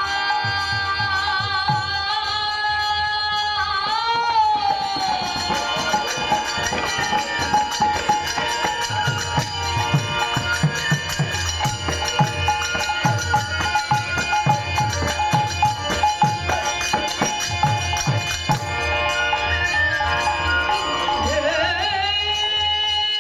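Bengali devotional kirtan music: held melodic lines with singing, and hand-drum strokes that come in through the middle part.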